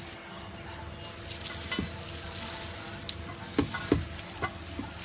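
Hands in thin plastic gloves tossing fried tofu pieces in a stainless steel bowl: a steady crinkly rustle of gloves and crisp tofu, with a few sharper knocks against the bowl in the second half.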